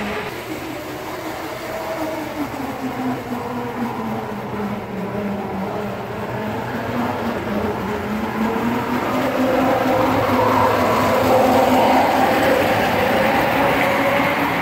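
Prewar American Flyer O gauge tinplate train running: the locomotive's electric motor and gears humming and the wheels rumbling on the track. The hum grows louder as the locomotive approaches and passes, loudest shortly before the end.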